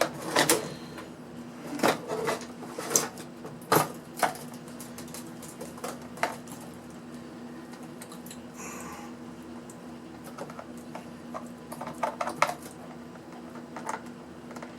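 Scattered clicks and light clatter of small metal and plastic parts being handled and tapped while a portable power pack is taken apart, busiest in the first few seconds and again near the end, over a steady low hum.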